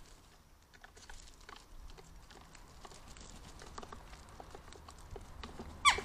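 Western jackdaws pecking at food on a wooden bird table: irregular light taps and clicks of beaks on wood, with one much louder sharp sound just before the end.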